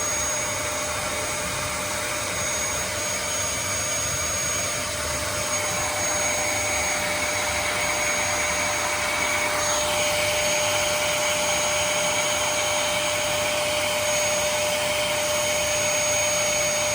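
Vacuum cleaner running steadily, with its sound shifting slightly about ten seconds in.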